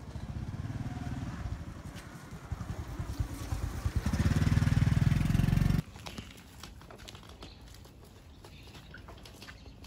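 A small motor scooter's engine running as it rides up the lane, growing louder as it draws closer, then cutting off suddenly about six seconds in. Faint ticks and street sounds follow.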